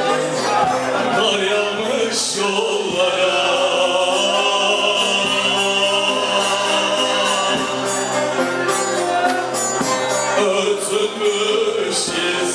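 A man sings a Turkish folk song live, accompanying himself on a bağlama (long-necked Turkish lute), and holds one long note through the middle.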